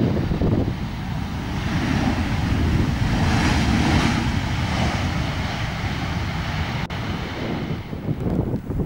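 Boeing 737 airliner's jet engines rushing during the landing roll, swelling to a peak about halfway through and then easing off, with wind buffeting the microphone throughout.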